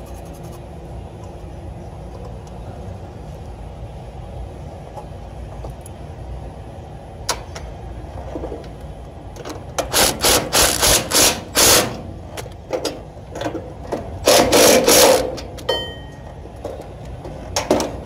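Handling noise from a phone held against fabric: a steady low rumble, then from about ten seconds in loud rustling and knocking as cloth rubs over the microphone, loudest for about a second near the end, with a short electronic beep just after.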